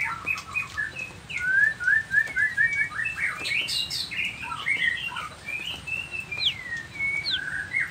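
White-rumped shama (murai batu, Nias form) singing a fast, varied song of short whistled notes and slurs, with a quick run of repeated notes about two seconds in.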